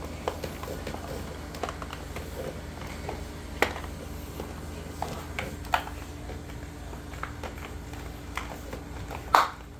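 Scattered light clicks and knocks of a vinyl window sash being handled and seated in its frame, with a louder knock near the end.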